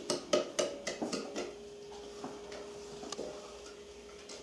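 Wooden spoon knocking against a glass measuring bowl while stirring spices into water, about four knocks a second, fading out about a second and a half in. A faint steady hum and a few light ticks follow.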